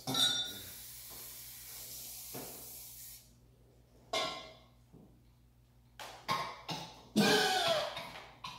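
Aerosol cooking-spray can spraying into a metal bundt pan to grease it: a steady hiss for about three seconds, then a second short burst a second later.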